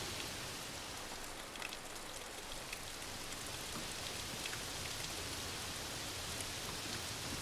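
Steady rain falling, with scattered individual drops heard as small sharp ticks over an even hiss.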